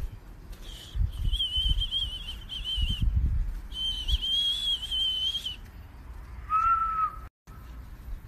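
High, wavering whistling in two long stretches, then a shorter, lower whistle near the end, over low thumps of footsteps and handling.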